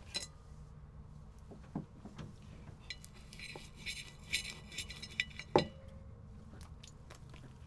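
Knife and fork clinking and scraping on a china plate while cutting flower petals, with scattered light clicks; the loudest, ringing scrapes come from about three to four and a half seconds in.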